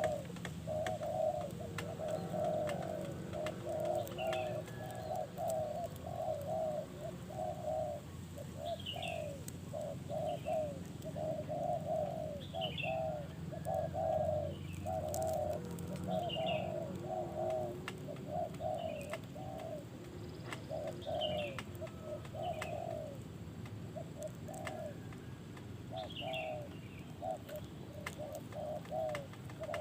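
Birds calling in a continuous run of short, repeated mid-pitched notes, with brief high chirps from another bird every second or two over a low steady hum.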